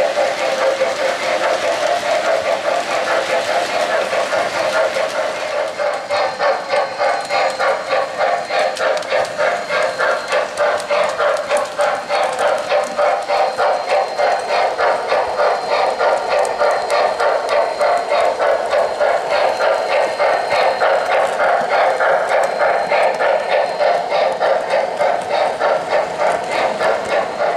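Model N&W J-class steam locomotive's electronic sound system chuffing in a steady rhythm, about three chuffs a second, over the rolling rumble of coal hoppers on three-rail O-gauge track. The chuff rhythm sets in about six seconds in.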